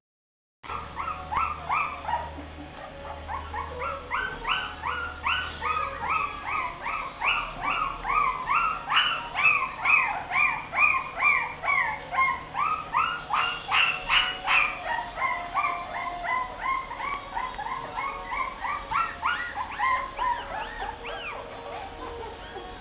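Very young puppies whimpering and squealing: a steady run of short high-pitched cries, each falling in pitch, two or three a second, starting about half a second in.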